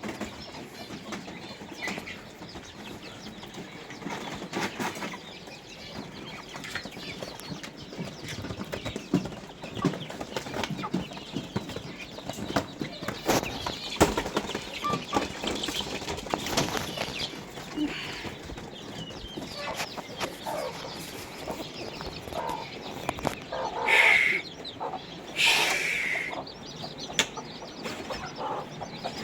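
Domestic chickens clucking among many short clicks and rustles, with two loud squawking calls about 24 and 26 seconds in.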